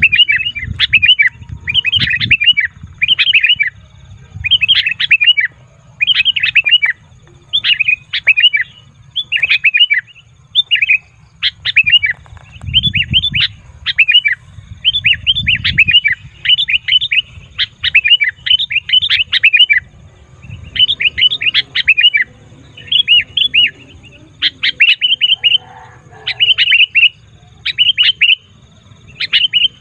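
Sooty-headed bulbul calling noisily and excitedly: short chattering bursts of quick chirps, about one burst a second, repeated without let-up. This is the restless 'ribut' call used to draw wild bulbuls in.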